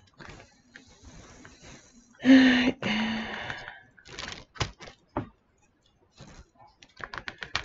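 Small plastic craft containers being handled: a short squeaky scrape about two seconds in, then a few sharp clicks.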